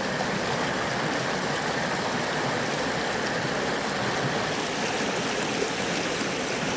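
Running water rushing steadily, heard close up.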